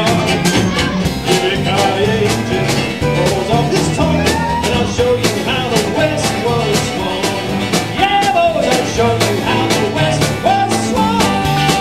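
Live country band playing an instrumental passage: bowed fiddle carrying a sliding melody over acoustic and electric guitars, electric bass and a steady drum beat.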